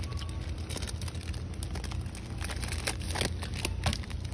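Steady low hum of supermarket background, with a few brief crinkles and clicks as a plastic snack package is handled.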